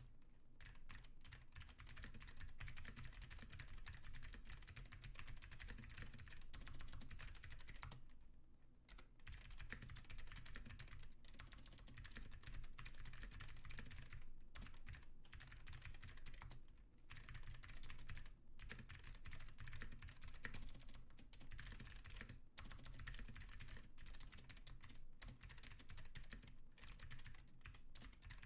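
Typing on a custom mechanical keyboard with clicky Alps blue switches, a stainless steel plate and Leading Edge keycaps: a quick run of key clicks with a few brief pauses, the longest about eight seconds in.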